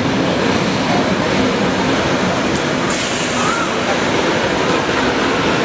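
Heritage Tait electric multiple unit's wooden carriages rolling slowly past along a platform: a steady rumble of wheels and running gear, with a short burst of hiss about three seconds in.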